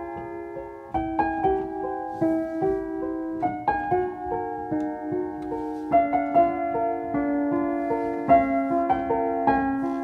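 Background music played on piano: single notes and chords struck one after another, each ringing and fading.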